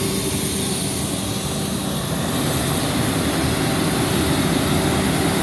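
Atlas Copco XAS 950 portable diesel air compressor running steadily, its engine drone holding a constant pitch with a broad hiss over it, getting slightly louder in the second half.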